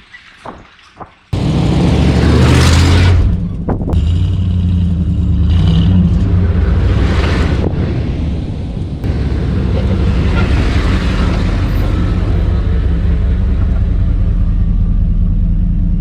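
A pickup truck's engine and exhaust coming in suddenly about a second in, running loud while it is driven off-road, with several surges as it is revved. Before that, a few light knocks.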